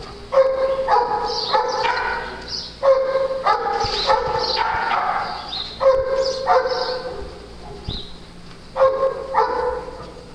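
A dog barking in four bouts of two or three loud barks each, about three seconds apart.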